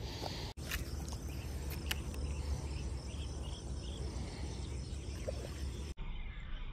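Outdoor ambience of insects chirping faintly over a steady low rumble, broken by two abrupt cuts.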